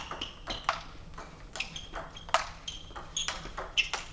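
Table tennis rally: a celluloid ball alternately bouncing on the table and being struck by rubber-covered bats, a sharp click about every half second. Some of the hits carry a short, high ping.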